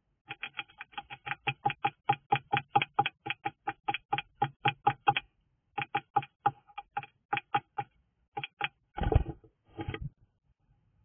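A bird's rapid chattering call: a run of harsh notes about five a second for some five seconds, then after a short pause a few more spaced notes. Near the end there is a loud low thump with rustling.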